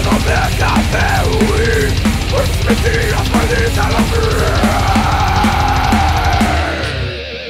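Rock music with a steady drum beat and a sustained melody line. The bass and drums drop out briefly near the end, then come back in.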